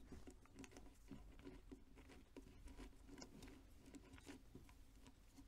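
Near silence with faint small clicks and scratches of fingers fastening a wire's cable lug onto a small battery's terminal screw.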